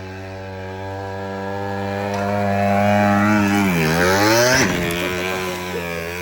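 Predator 212 single-cylinder four-stroke engine on a home-built minibike, running steadily and growing louder; about four seconds in, its pitch dips and then climbs sharply as it revs up, before easing back.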